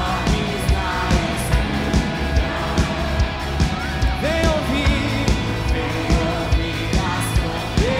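Live band playing a worship song with a steady drum beat of about two beats a second and a singer's voice over it.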